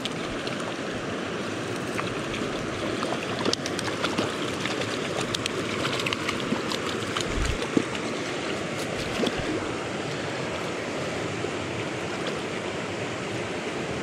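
Small stream running steadily over its bed, with a few light clicks in the middle of the stretch.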